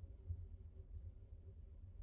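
Wood fire burning in a fireplace: a low, steady rumble with a faint crackle or two.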